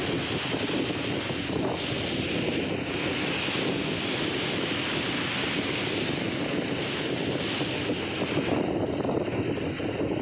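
Steady wind blowing across the microphone over the rushing wash of open sea along a moving ship's hull.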